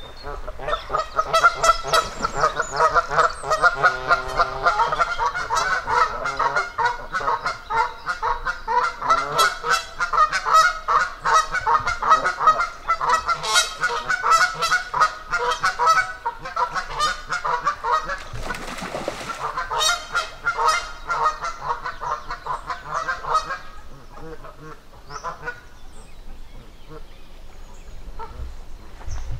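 Geese honking loudly and rapidly in a long, continuous chorus of calls that dies down to a few scattered honks near the end. A brief rushing noise cuts through the calling about two-thirds of the way in.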